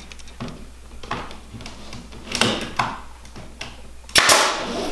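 Nail gun firing a nail into a green willow chair frame: one sharp, loud shot about four seconds in, after lighter clicks and knocks as the tool is set against the wood.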